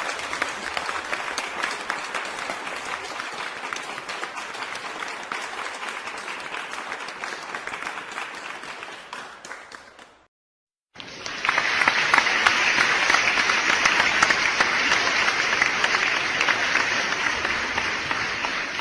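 Crowd applause sound effect, fading out about ten seconds in; after a second of silence, a second, louder burst of applause starts and slowly fades toward the end.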